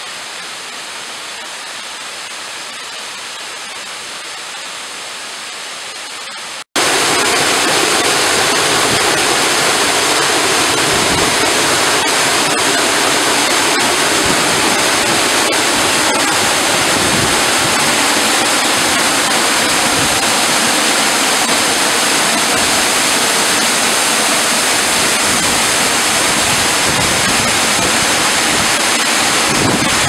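Waterfall rushing steadily, softer at first. About seven seconds in, it cuts abruptly to a much louder, fuller rush of water close to the fall.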